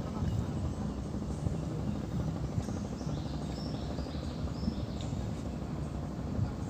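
Steady low rumble, with a few short high chirps about three to five seconds in.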